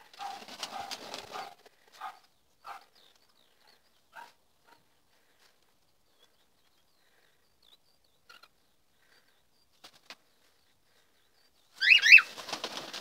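Cockatiels and budgerigars calling: a cluster of short calls at the start, scattered single calls, then a burst of loud, shrill chirps with quick rising and falling pitch near the end.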